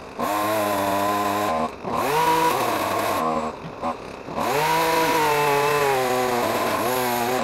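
Chainsaw run up to high speed three times, most likely cutting branches, dropping back between runs; the last run is the longest, about three seconds.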